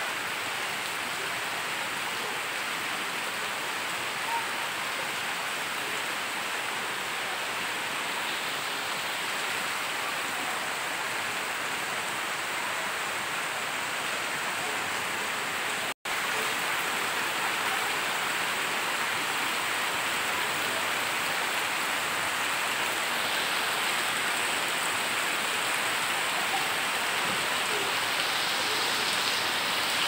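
Steady heavy rain falling on leaves, grass and ground. The sound cuts out for an instant about halfway through, then goes on as before.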